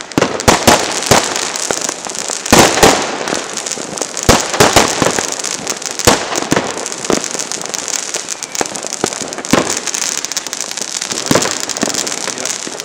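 Fireworks going off: a rapid, irregular series of sharp bangs over a steady hiss.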